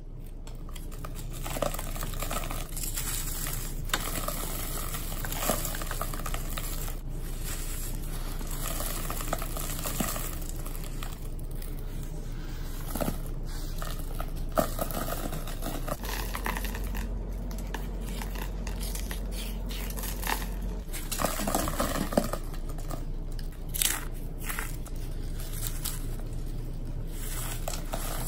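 Hands crushing and crumbling a dried, crunchy slab of dyed powder: irregular crunches and crackles as pieces break apart and powder falls onto a wire rack.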